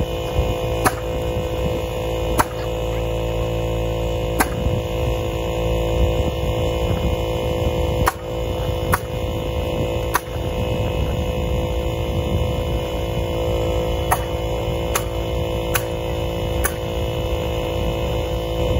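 Steady machine hum with a pitched drone over a low rumble, broken by about a dozen sharp clicks or knocks at irregular moments.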